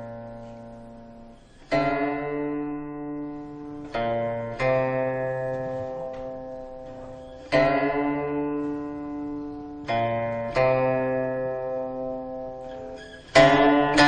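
Background music: a plucked string instrument playing slow, sparse notes and chords. Each is left to ring and fade before the next, about seven in all.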